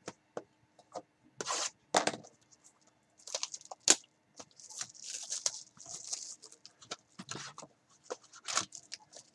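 Cellophane shrink-wrap being torn and peeled off a trading card box, with crackly, crinkling rustles. A few sharp knocks from handling the box come in the first two seconds.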